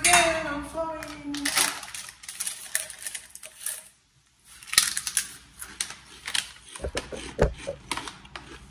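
A brief hum-like pitched sound falling slightly, then a run of irregular light clicks and taps from handling things while cooking in a kitchen.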